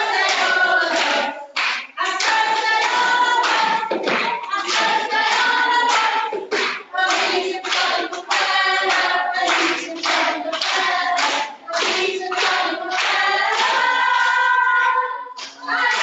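A group of voices singing a song with held notes, with hand clapping.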